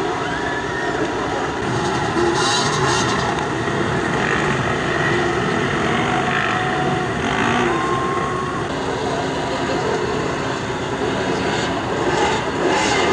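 Several dirt bike engines revving at once, each rising and falling in pitch as the throttles are blipped on a rocky climb, overlapping into a continuous din.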